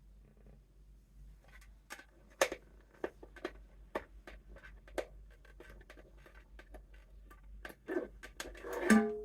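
Irregular light clicks, taps and scratches of plastic bowls, plates and tape being handled and pressed together. A louder cluster comes near the end.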